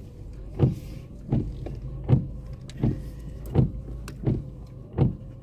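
Car's seatbelt warning chime beeping over and over, seven evenly spaced beeps at about three every two seconds, over the steady hum of the moving car. It is set off by the dog sitting on the passenger seatbelt.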